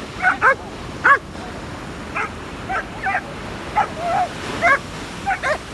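Puppies yipping and barking, about a dozen short high calls in quick succession, with surf washing steadily behind.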